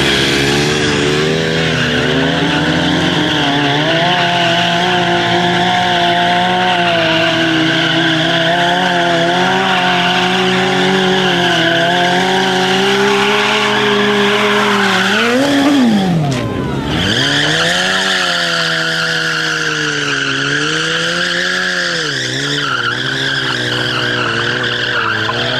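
Sport motorcycle engine running and being revved, its pitch wavering up and down as the throttle is worked, with a quick rise and a deep drop in revs about sixteen seconds in before it picks up again. A steady high hiss runs over it and cuts out briefly at the rev drop.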